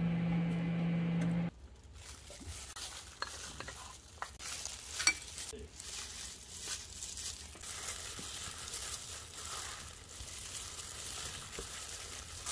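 Gloved hands in thin plastic gloves mixing cooked rice with crumbled dried seaweed flakes in a ceramic bowl: a soft crackling, rustling sound with many small clicks and one sharper click about five seconds in. A steady electrical hum is heard for the first second and a half and cuts off abruptly.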